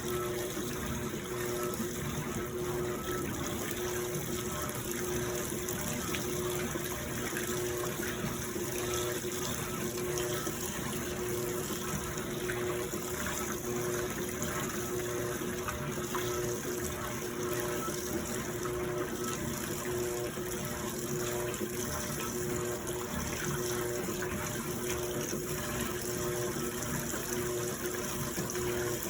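Electrolux washing machine with water rushing through it over a steady electric hum.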